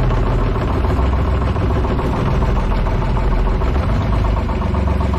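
Small outrigger fishing boat's engine running steadily at a constant speed, a low drone with a fast, even chatter over it.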